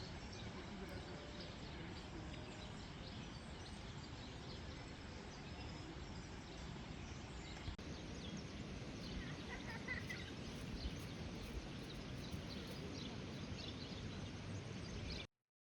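Steady outdoor background noise with a few faint bird chirps about nine to ten seconds in.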